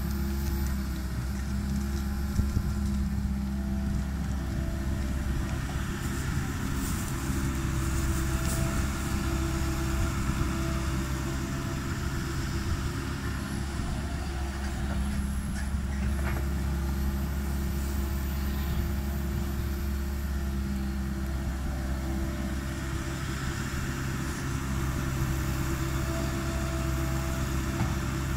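Tracked excavator's diesel engine running steadily under load while digging, with a higher whine that comes and goes and a few knocks.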